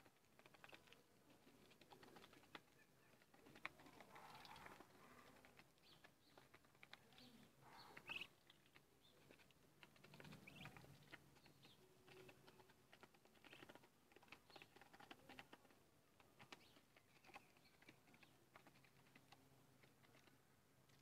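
Faint, irregular clicking and tapping of Muscovy ducklings' bills pecking and dabbling at feed in a plastic dish, with a few brief soft calls now and then.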